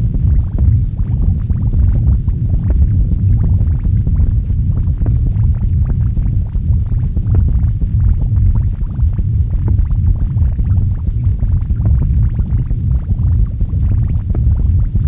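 Experimental noise music: a dense, continuous low rumble with rapid crackle on top, steady in level throughout.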